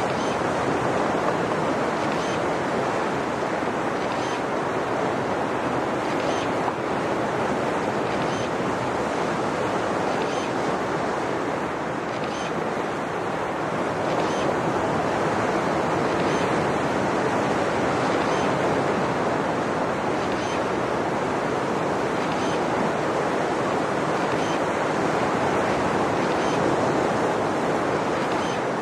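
Ocean surf breaking and washing steadily onto the beach, with faint camera shutter clicks about every two seconds.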